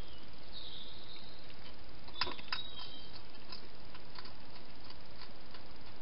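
Hedgehog feeding at its bowls inside a plastic feeding box: two sharp clicks a little over two seconds in, then lighter scattered clicks, over a steady hiss.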